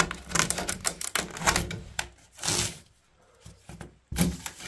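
A quick, irregular series of sharp clicks and knocks, broken by a short burst of hiss about two and a half seconds in and a brief lull near the end.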